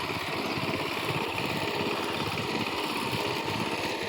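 A small engine running steadily, with a fast, even chugging.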